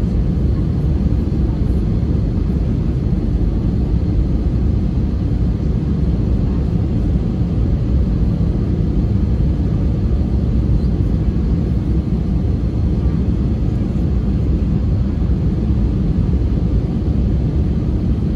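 Steady in-flight cabin noise of an Airbus A320neo (A320-271N) with Pratt & Whitney PW1100G geared turbofan engines: a constant low rumble of engines and airflow, heard from a window seat over the wing.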